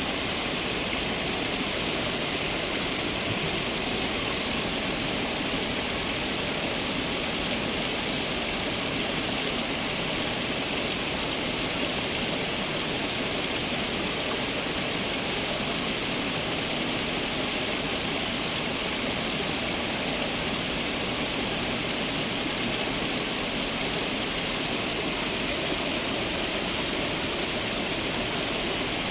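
Fountain water splashing and falling steadily, an even rush with no breaks.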